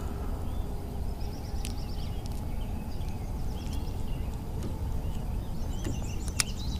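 Songbirds chirping, with a couple of quick buzzy trills, over a steady low outdoor rumble. A few light clicks, the sharpest near the end, come as the bass is unhooked by hand.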